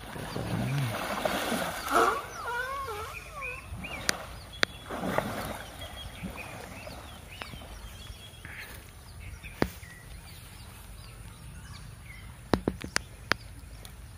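Water sloshing and splashing around a wading Asian elephant, in two spells, the first about three seconds long and the second around five seconds in. Birds chirp throughout, and several sharp clicks come later, a cluster of them near the end.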